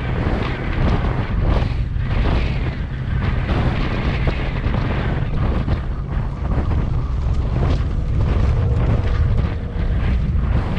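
Wind buffeting the microphone of a camera mounted outside a Toyota FJ Cruiser as it drives along a rutted dirt track, a loud, steady low rumble mixed with the vehicle's running and tyre noise.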